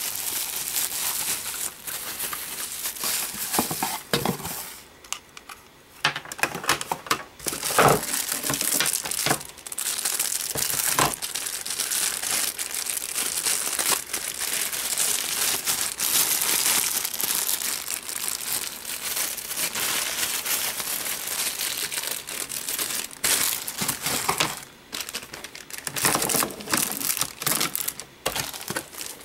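Plastic packaging being crinkled and crumpled by hand while unwrapping boxed electronics, a long run of dense crackling with a few short pauses and the odd tap or knock.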